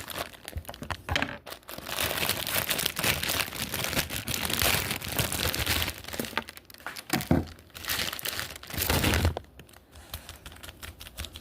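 Plastic wrapper of an instant ramen noodle packet crinkling as it is handled and cut open with scissors, in long stretches that die down near the end.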